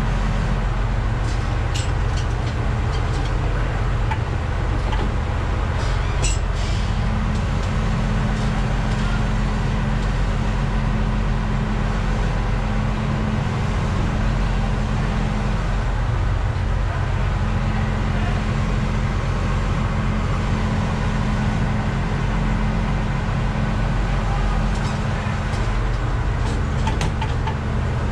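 Bizon Rekord combine harvester's diesel engine running steadily, heard from inside the cab, with a few light clicks and rattles.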